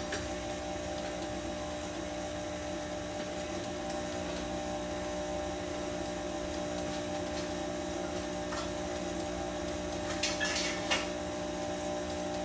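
Steady machine hum with several fixed pitches. A few light knocks and a brief clatter come near the end.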